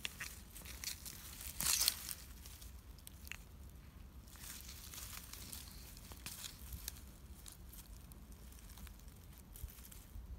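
Rustling and crackling of dry grass, stems and leaves as tortoises feed on a sprig of wild raspberries, with a louder crackling rustle about two seconds in and scattered small clicks after.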